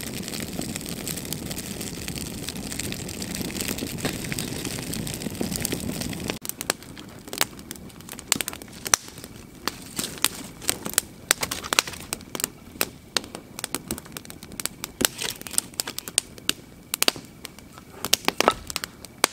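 A campfire of stacked sticks burning with a steady rushing of flames, then, from about six seconds in, crackling and popping with many sharp, irregular snaps.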